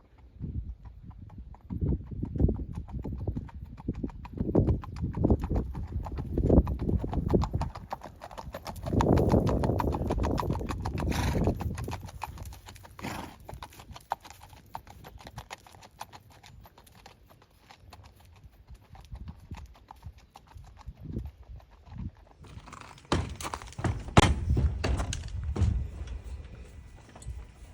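Horses' hoofbeats, an irregular run of dull thuds, louder and denser about nine seconds in and again near the end.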